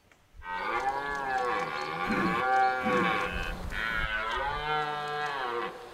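Red deer stag giving its rutting roar: two long calls, one straight after the other, the second beginning a little past halfway.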